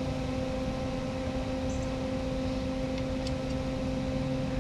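A steady mechanical hum, with a few faint clicks.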